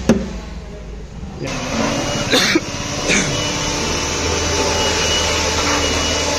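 LF bass speaker cabinet making an unwanted noise: a steady hissing buzz over a low hum, with a few knocks in the first three seconds. The owner puts the noise down to loose screws in the cabinet.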